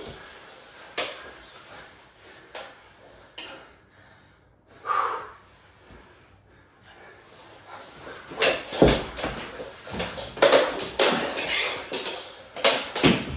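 Mini hockey sticks clacking and a puck knocking on a hardwood floor, with knees and bodies scuffing across the boards. There are a few scattered knocks at first, then a quick, busy flurry of clacks and scrapes from about eight seconds in as play picks up.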